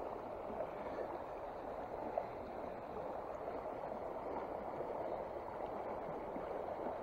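Shallow mountain creek rushing steadily over riffles and stones, with one faint tick about two seconds in.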